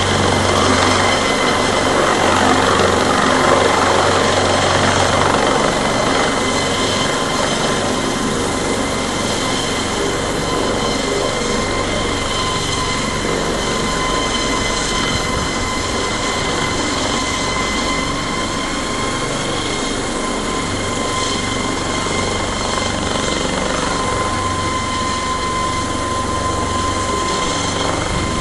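Cargo helicopter hovering with a load slung on a long line beneath it: a steady rotor rumble with a steady high whine over it, a little louder in the first few seconds.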